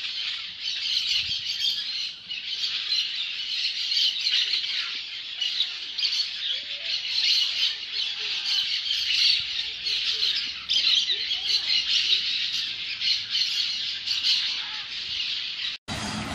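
A flock of parakeets calling in a dense, continuous high-pitched chatter of rapid squawks and chirps. It breaks off abruptly near the end, giving way to a steady hiss.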